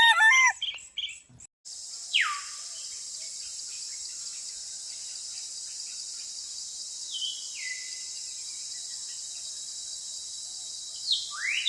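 A steady chorus of crickets or similar insects, with a few bird calls over it: a falling whistle about two seconds in, a stepped falling call around seven seconds, and a rising call near the end. The tail of a rooster's crow is heard at the very start.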